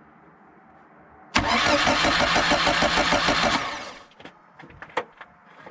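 The starter of a VAZ-2111 (Lada) cranks and starts its four-cylinder engine. The run starts suddenly about a second and a half in, with an even pulsing, lasts about two seconds and fades out. Its drive sprockets and bushings have just been greased to cure a whistle. A few sharp clicks follow near the end.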